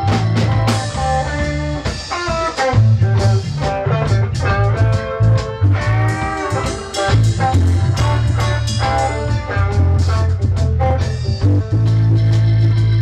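Live band playing a rock-blues jam: guitar lead lines with notes that bend in pitch, over a steady bass line and drums.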